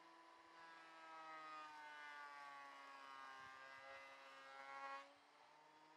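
Near silence with a faint whine that dips slowly in pitch and rises a little again, then cuts off about five seconds in, over a faint steady hum.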